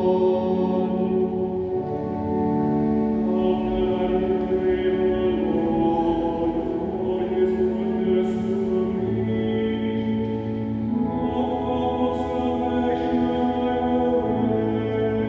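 A cantor leads the sung responsorial psalm with pipe organ accompaniment, in held notes that change every second or two.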